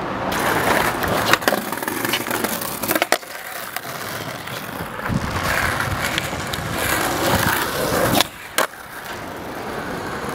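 Skateboard wheels rolling on rough tarmac, with several sharp clacks of the board striking the ground, two of them close together near the end.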